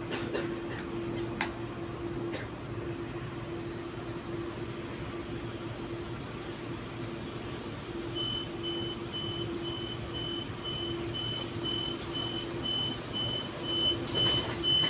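Steady hum of an Auckland AM class electric train standing at a platform, heard inside the carriage. About eight seconds in, a high-pitched beep starts repeating about three times a second, the door-closing warning. A few knocks come near the end.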